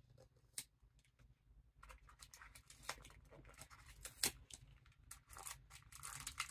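Faint scattered clicks and rustles of a small plastic Disney Squish'Alots capsule being handled as the mini figures are taken out of it, with one sharper click a little after four seconds in.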